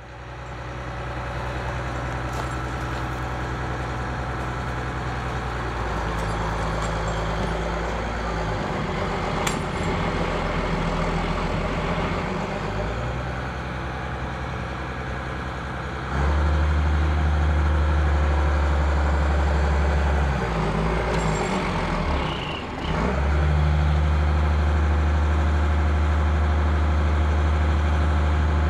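Diesel engine of a loader running steadily, then revving up and working harder about halfway through and again a few seconds later, as the machine takes up the strain on a line pulling down a hurricane-damaged oak.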